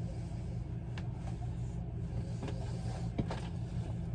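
A steady low hum, with a few faint rustles and taps as T-shirt sleeves are pulled and knotted behind the head.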